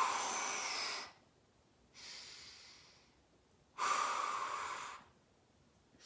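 A woman forcefully blowing out breaths, as if blowing out birthday candles, to brace her core. There are two strong exhales of about a second each, one at the start and one about four seconds in, each followed by a quieter breath.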